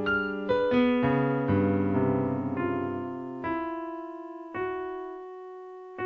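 Piano music: notes and chords struck and left to ring, slowing toward the end to single notes about a second apart, each fading away.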